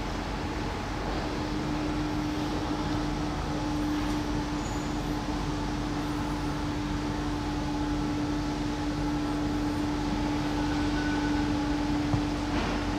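Steady machine hum at a railway station platform, with one strong constant low tone and fainter steady tones above it, and a small click near the end.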